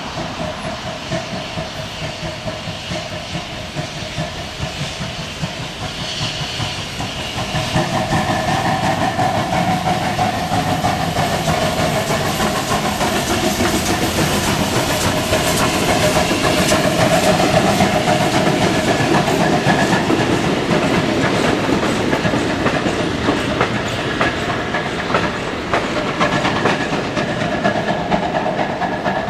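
Steam-hauled train of a TKt48 tank locomotive and vintage coaches passing over a level crossing: steam hissing and wheels clicking over rail joints, louder from about eight seconds in as the train reaches the crossing.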